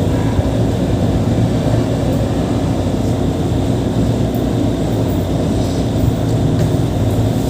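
Steady low machine hum that holds even throughout.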